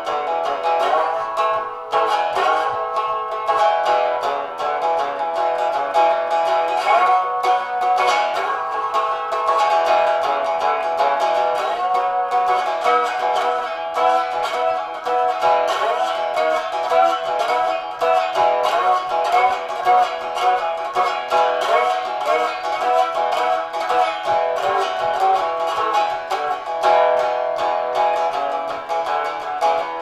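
Homemade fretless three-string solid-body resonator guitar, with a stove flame diffuser as its resonator, played with a metal slide in open E tuning: continuous rapidly picked notes with sliding pitch glides and a dobro-like tone.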